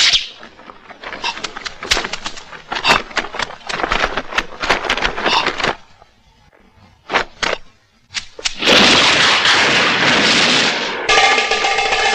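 Film fight sound effects: a fast run of sharp hits and knocks, a short quiet, a few more sharp hits, then a loud rushing hiss of about two seconds as a flash-and-smoke burst goes off. Music with a sustained melody comes in near the end.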